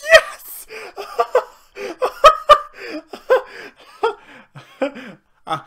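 A man giggling and laughing excitedly in a run of short, breathy bursts.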